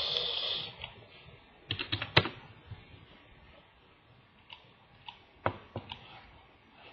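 Computer keyboard and mouse clicking while a CAD dimension is entered: a quick run of clicks about two seconds in, the loudest, then a few scattered single clicks later on. A brief hiss comes at the very start.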